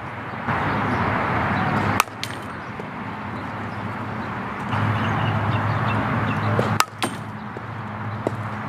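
Softball bat hitting front-tossed balls: two sharp cracks of contact about five seconds apart.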